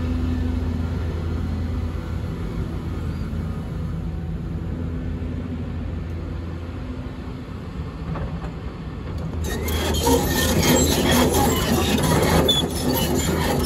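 Cat 320D hydraulic excavator's diesel engine running with a steady low hum. About nine and a half seconds in, the steel tracks start clanking and squealing loudly as the machine travels across gravel.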